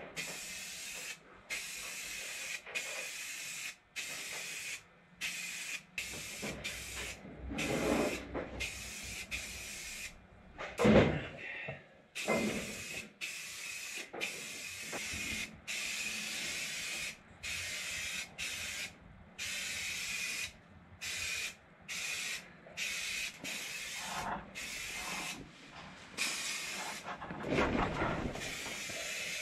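Aerosol spray can of high-build filler primer spraying in short hissing bursts, a second or so each, with brief pauses between them, over and over as a coat goes on. A thump about eleven seconds in is the loudest sound.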